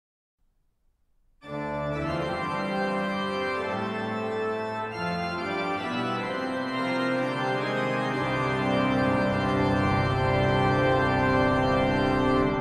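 Marcussen pipe organ (three manuals and pedal, 56 stops) playing a toccata. It enters suddenly about one and a half seconds in with loud, many-voiced chords that keep changing, with sustained pedal bass notes beneath.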